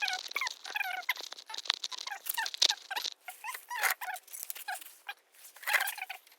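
An animal's short, high-pitched cries, repeated over and over with rising and falling pitch, with scattered light clicks and knocks of metal tools.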